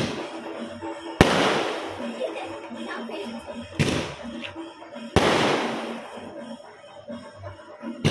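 Aerial fireworks bursting overhead: a sharp bang every one to three seconds, each followed by a long fading rumble and crackle.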